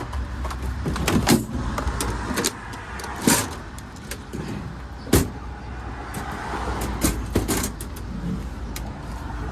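Irregular knocks and clatter, a few sharper than the rest, over a steady low rumble.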